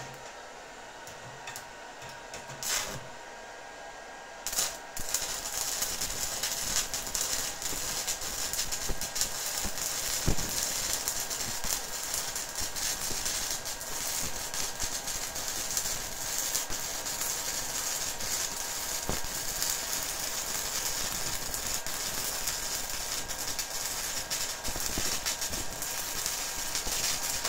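Stick (MMA) welding arc from a handheld mini inverter welder burning a 2.5 mm electrode at about 80 A. There are two short crackles as the arc is struck, about three and about four and a half seconds in. Then comes a steady crackling sizzle while a bead is laid.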